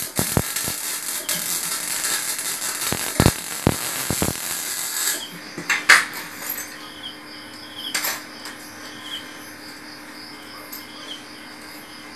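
Electric arc welding on a steel chair frame: a dense crackling hiss that stops about five seconds in. Afterwards two sharp metal knocks, a steady low hum, and crickets chirping.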